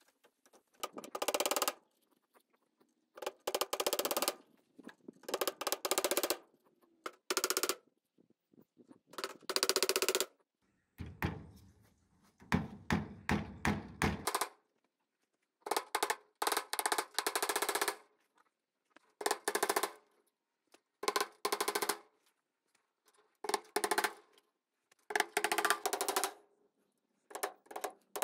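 Hammer driving galvanized fence staples through wire mesh into a timber frame, in short runs of quick blows with pauses between.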